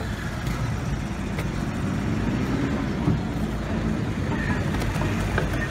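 Steady street traffic noise with a low engine rumble, and a brief knock about three seconds in.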